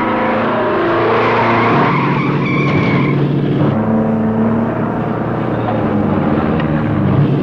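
Heavy truck engine running hard with tyres squealing: a runaway rig with no brakes, its air-brake line ripped out. The engine note shifts in pitch a few times, with a squeal about two and a half seconds in.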